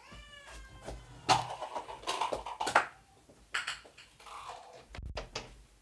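Rustling, clicks and knocks of things being handled close to the microphone, with a short falling pitched call in the first second and a dull thump a little after five seconds.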